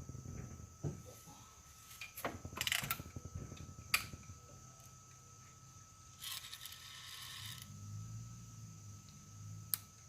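BB gun being handled and readied, with scattered sharp mechanical clicks and rattles and a short hiss partway through.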